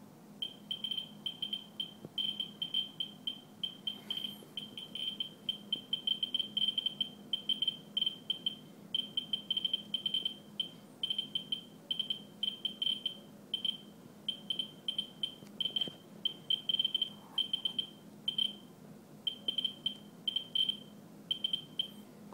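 Ludlum Geiger counter with a pancake probe clicking through its speaker: fast, irregular high-pitched chirps, several a second, coming in uneven clusters. The probe is held to a paper towel soaked with rainwater, and the count rate is far above background, the meter reading around 340 to 360 counts per minute.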